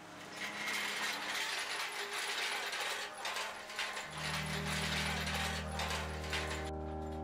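Small-wheeled metal hand cart rattling and clattering as it is pushed over rough dirt ground. About four seconds in, low steady music tones come in beneath it, and the clatter thins out near the end.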